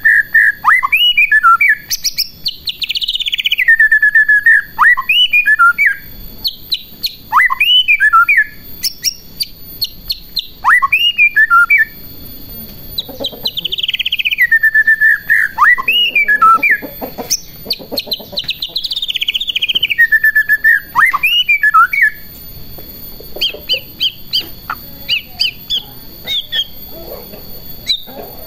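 White-rumped shama (murai batu) in loud, vigorous song: phrases of clear whistles that glide down in pitch, each broken into quick rapid notes, repeated every few seconds. Near the end the song turns to softer, quick short notes.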